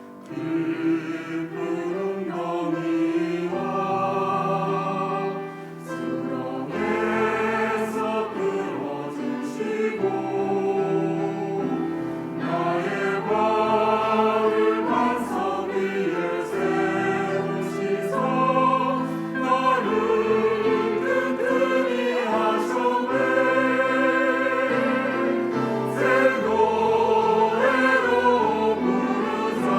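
Church choir singing an anthem in parts, with held, changing chords.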